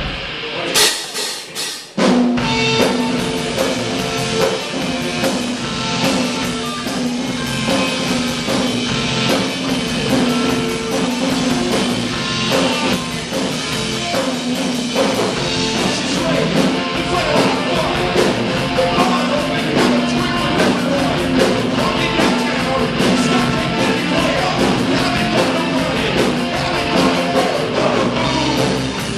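Live rock band starting a song: a loud opening hit about a second in, then electric guitar and drum kit playing together at a steady driving beat from about two seconds in, with a man singing near the end.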